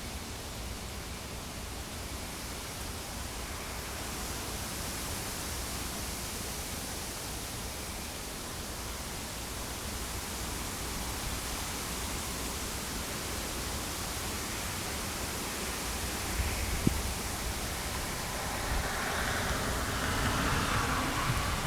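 Thunderstorm outflow wind and rain: a steady rushing hiss with a low rumble of wind on the microphone, swelling louder over the last few seconds. One sharp click about seventeen seconds in.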